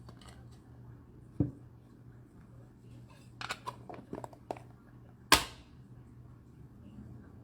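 Trading cards being handled on a table: a soft knock, then a quick run of light clicks and rustles, and one sharp click, the loudest, a little after the middle.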